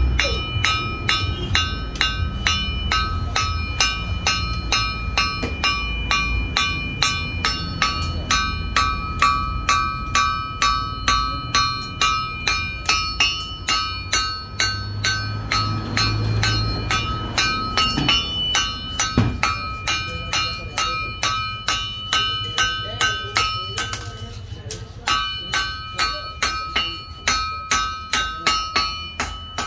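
Hand hammer forging a red-hot curved steel blade on a steel anvil: a long run of even, rapid blows, about two to three a second, each one ringing. The blows pause briefly near the end, then resume.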